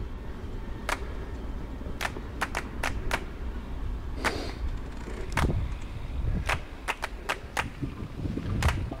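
Mountain bike ridden over a bumpy trail: irregular sharp clicks and knocks as the bike rattles over the ground, over a steady low rumble of tyres and wind.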